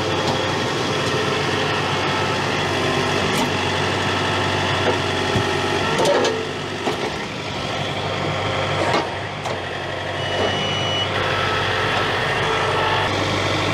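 John Deere tractor engine running steadily while its debris grapple bucket works, with a few sharp knocks from the grapple and its load. A brief high tone sounds about ten seconds in.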